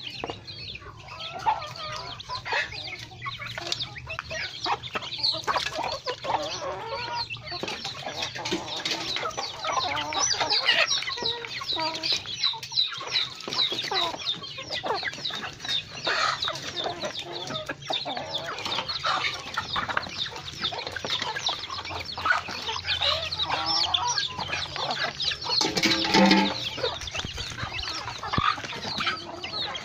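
A flock of chickens (hens, a rooster and young birds) clucking and peeping continuously while they feed, a dense stream of short high calls. One louder, lower call stands out near the end.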